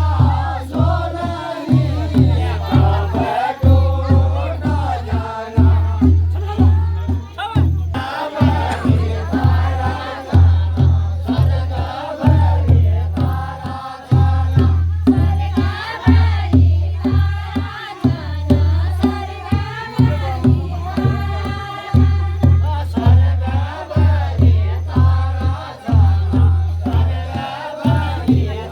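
Pahari chanchari folk song: a group of voices singing together over a steady, repeating drum beat.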